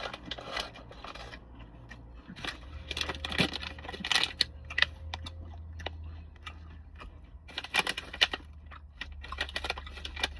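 A person chewing and crunching a snack close to the microphone, in irregular runs of crisp crunches, over a steady low hum.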